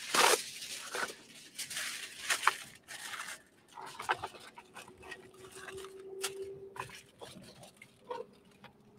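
Aluminium foil rustling and crinkling, with irregular clicks and taps from a tin pan being handled.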